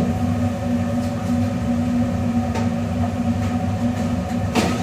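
Steady low mechanical drone of commercial kitchen equipment, with a couple of light knocks, one about two and a half seconds in and one near the end.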